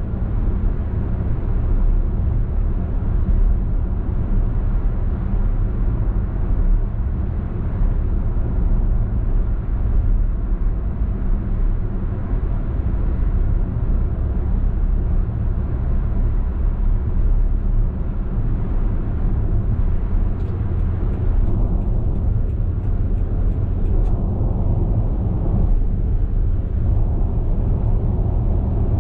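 Steady low rumble of a moving car heard from inside the cabin of a 2018 Perodua Alza MPV cruising on a highway: tyre and road noise with the engine running underneath.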